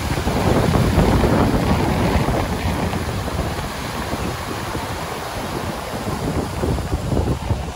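A river in spate rushing over rocks into the sea, a dense steady roar of whitewater, running high with snowmelt. Heavy wind buffets the microphone, strongest in the first few seconds.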